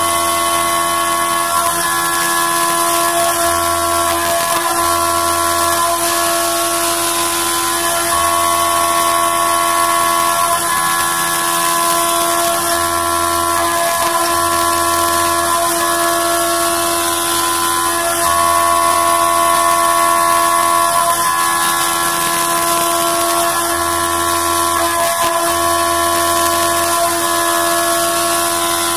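CNC milling machine's spindle and end mill cutting an aluminium plate at high speed: a loud, steady, high-pitched whine made of several tones over a hiss, shifting slightly every few seconds as the cut goes on.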